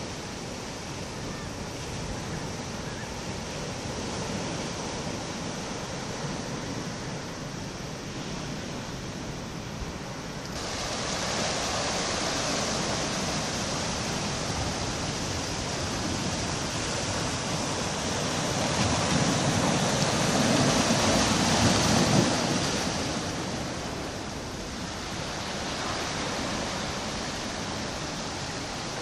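Sea surf breaking and washing over the rocks of a breakwater, a steady rushing that grows louder about ten seconds in, swells to its loudest around twenty seconds, then eases off.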